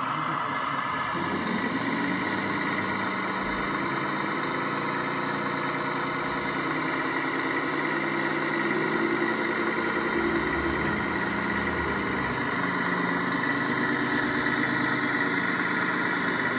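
Radio-controlled model construction trucks running: an engine-like drone whose pitch shifts up and down a few times, over a steady high whine.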